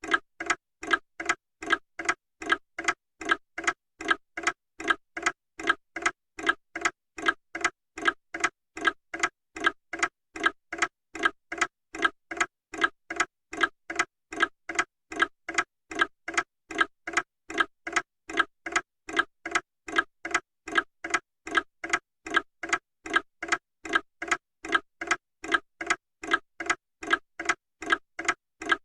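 Clock ticking steadily at about two ticks a second, the ticks alternating stronger and weaker in a tick-tock.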